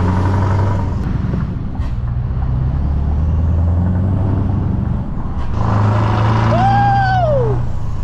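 Lorry diesel engine heard from inside the cab, pulling away and accelerating, its note dropping and climbing again at gear changes about one and five seconds in. Near the end a short whistle-like tone rises and falls once.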